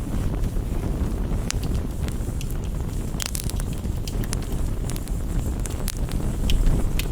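Campfire burning, with scattered sharp crackles and pops over a steady low rumble.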